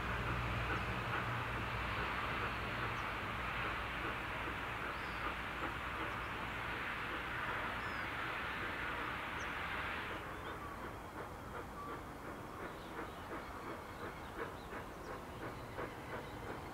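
NSW steam locomotive 3801 departing: a loud, steady steam hiss, typical of the cylinder drain cocks blowing, cuts off sharply about ten seconds in. Quieter, even exhaust chuffs at about two or three a second follow as the locomotive works its train.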